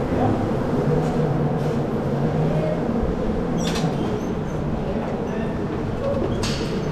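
Indoor go-kart motor running steadily with a wavering low hum and track noise, with two short hissing bursts, one about halfway through and one near the end.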